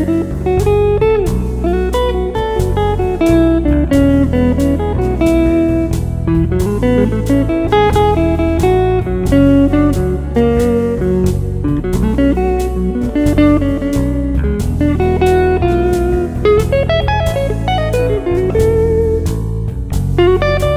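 Background music: blues guitar with bending notes over a steady beat.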